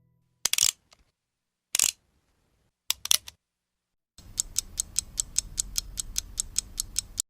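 Mechanical clicking: a few separate sharp clicks, then a rapid, even ratcheting run of about seven clicks a second over a low rumble that stops abruptly.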